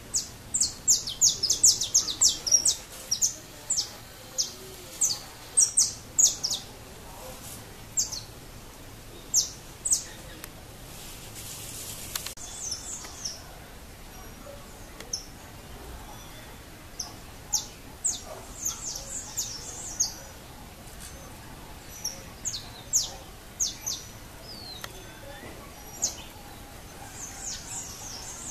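Saffron finch (canário-da-terra) calling: short, sharp high-pitched chip notes, a quick run of them in the first three seconds, then scattered notes and small clusters through the rest.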